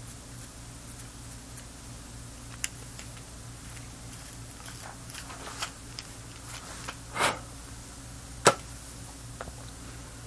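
Light clicks, taps and knocks of tools and parts being handled on an electronics workbench, scattered and irregular, the sharpest about eight and a half seconds in, over a steady low electrical hum.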